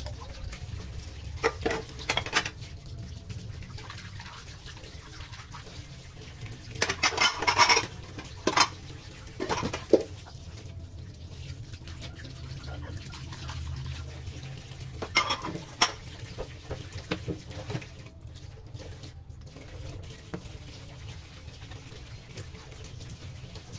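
Hand-washing dishes under a running kitchen tap: water runs steadily into a stainless-steel sink while metal bowls and plastic ware knock and clatter now and then, busiest about a third of the way in.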